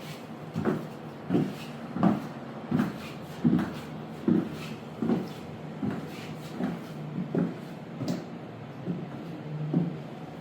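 Footsteps of a woman walking in 6.5-inch thin-heeled platform high heels: a steady run of heel strikes, about one every 0.7 seconds.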